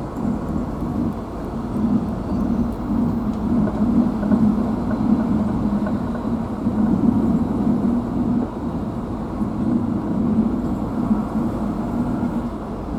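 Engine and road noise of a car driving along, a steady low rumble.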